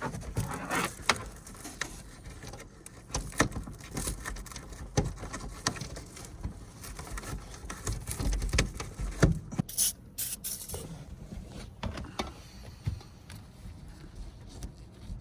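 Hands working on a car interior during a dashcam install: a run of scattered taps, clicks and scrapes of plastic trim and cable being handled, with a few brief rustles about ten seconds in.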